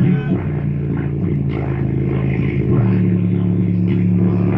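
A subwoofer in a carpet-covered, slot-ported box plays the loud, sustained deep bass notes of an R&B song. The notes change pitch every second or two, and the rest of the music is much fainter above them.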